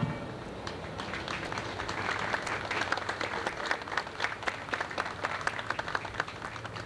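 Crowd applauding, with many hands clapping unevenly; the clapping builds over the first couple of seconds and then goes on.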